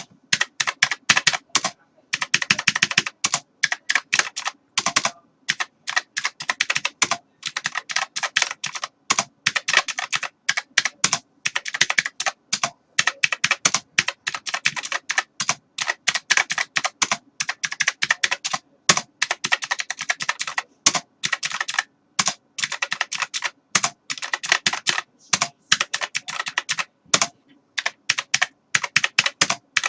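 Computer keyboard being typed on in fast, continuous runs of key clicks, broken by brief pauses of about half a second.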